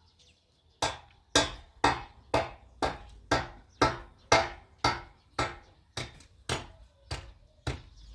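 A steady series of sharp strikes, about two a second, each ringing briefly, starting about a second in.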